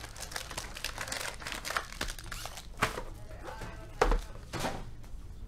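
Plastic wrapping crinkling and tearing as a box of football trading cards is opened by hand, with one sharp knock about four seconds in.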